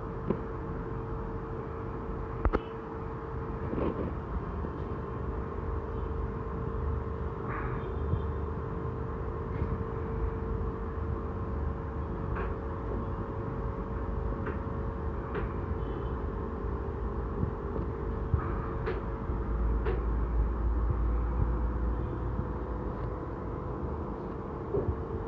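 Steady machine hum with a constant tone and low rumble, with scattered faint clicks now and then.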